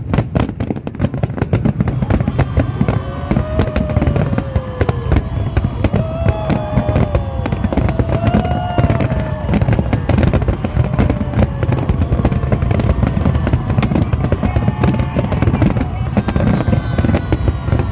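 Aerial fireworks going off in quick succession: a dense, continuous crackle of many bangs, with no break.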